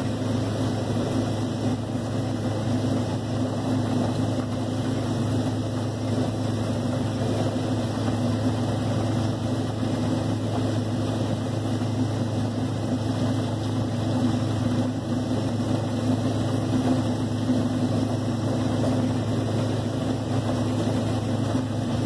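Combine harvester running steadily while harvesting corn: a continuous engine and machinery drone with a low hum, unchanging throughout.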